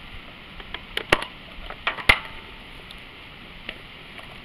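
Sharp clicks and knocks from the plastic air cleaner cover on a Briggs & Stratton Intek I/C 206 engine as it is pressed into place and a screwdriver is put to its screw. There are two pairs of knocks, about a second in and again about two seconds in.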